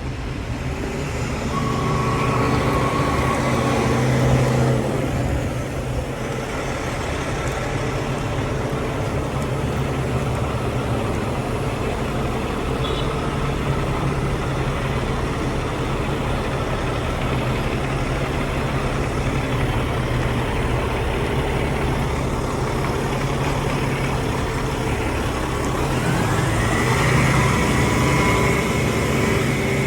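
Heavy truck engine running close by with a steady low drone; about two seconds before the end the engine revs up, its pitch rising and getting louder.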